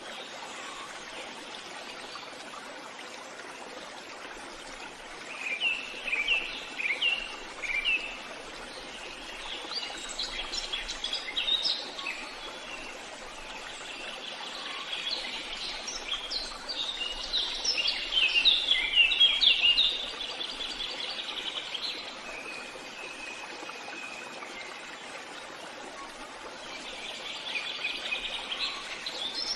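Forest ambience of songbirds singing over a steady background hiss. The song comes in separate phrases of quick, falling notes, with the densest and loudest singing about halfway through.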